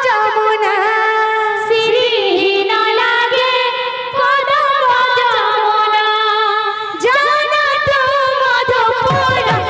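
Woman singing a devotional kirtan melody in long held notes with a wavering vibrato. Low rhythmic strokes come in near the end.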